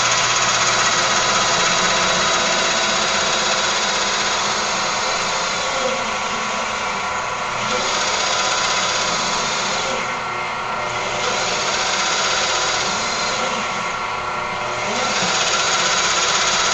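Drill press with a nine-spindle multiple-spindle head running and drilling under heavy load into hard HDPE plastic: a steady mechanical sound of many tones, its upper range fading and returning every three to four seconds. The press lacks the horsepower for the job, and the bits fail to go through the plastic.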